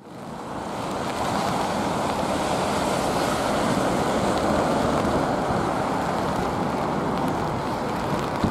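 Steady rushing roar of gusty storm wind on the microphone mixed with the jet engines of an Airbus A380 on final approach, swelling in over the first second and then holding steady.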